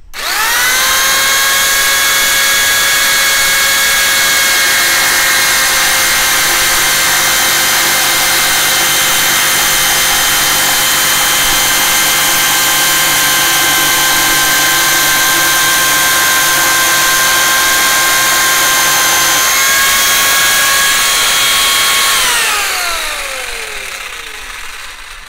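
Parkside PSTK 800 C3 800 W jigsaw running loud and cutting through wood, with a steady high motor whine over the rasp of the blade. Near the end its pitch steps up slightly, then it is switched off and winds down with a falling whine.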